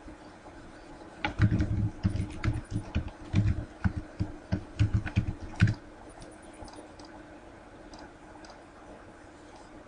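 Computer keyboard typing: a quick run of keystrokes from about a second in until near six seconds, followed by a few faint, scattered clicks.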